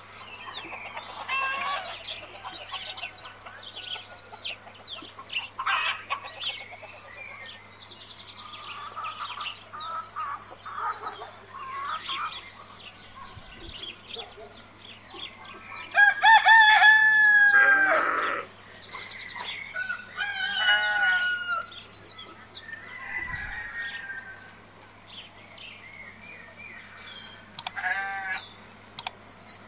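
Farmyard chickens clucking, with small birds chirping and trilling throughout; a rooster crows once loudly about halfway through. A steady low hum runs underneath.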